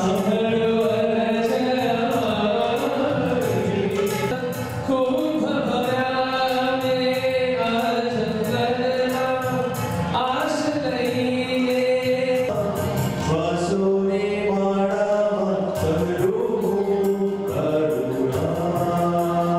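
Jain devotional song (stavan): voices singing a slow, gliding melody with musical accompaniment.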